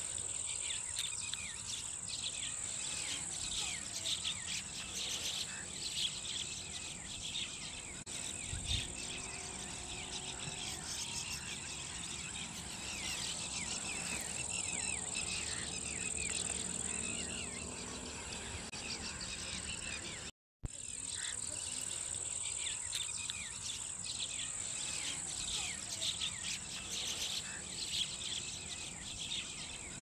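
Crickets trilling steadily at a high pitch, with many short chirps layered over them. The sound drops out for an instant about twenty seconds in.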